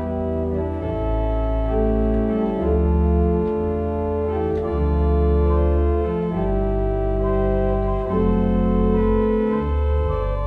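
Background organ music: slow, sustained chords over deep held bass notes, the chord changing every second or two.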